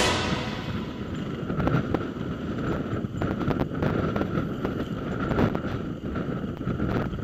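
Single-cylinder dual-sport motorcycle engine running while riding over a rough, rocky gravel track, with wind buffeting the microphone and scattered knocks from stones and the suspension.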